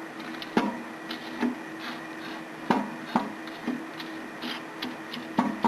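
A microwave oven running with a steady hum. Irregular sharp pops and crackles come from the fire burning inside the cavity.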